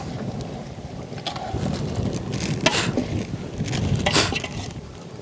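A steel ladle stirring chicken pieces in a metal cooking pot over a wood fire, with several short scrapes and clinks of the ladle against the pot. Strong wind rumbles on the microphone throughout.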